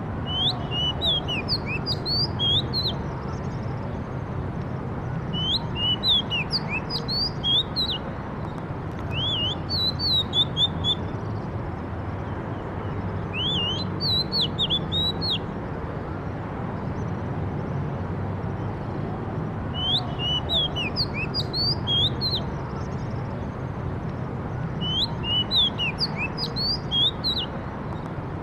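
A bird singing in short bursts of quick, rising and falling chirps, six phrases a few seconds apart, over a steady low background hum.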